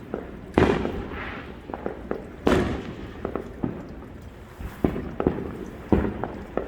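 Aerial fireworks bursting: three loud booms, each trailing off in a rumble, about half a second, two and a half seconds and six seconds in, with smaller sharp pops in between.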